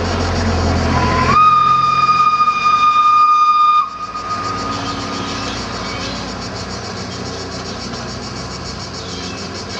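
Narrow-gauge steam locomotive's whistle: one long blast of about two and a half seconds that slides up in pitch as it opens and cuts off sharply. It sounds over the running of the train as it pulls away.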